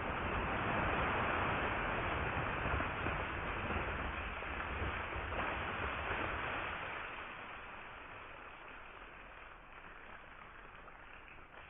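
Water thrown up by an underwater flash-powder explosion falling back onto the surface as a dense, rushing splash. It eases after about seven seconds into a quieter churning of the disturbed water.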